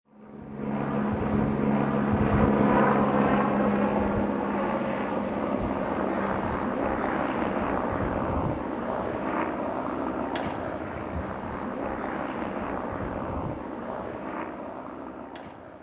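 A steady mechanical rumble, engine-like. A low hum sits under it for the first few seconds, and it fades out at the end.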